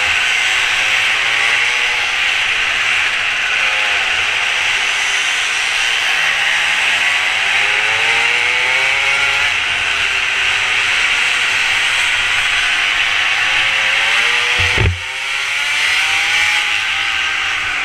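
Mini moto engine revving up and down repeatedly as the bike is ridden through corners, with a steady rush of wind over the helmet-mounted microphone. A single sharp knock about fifteen seconds in.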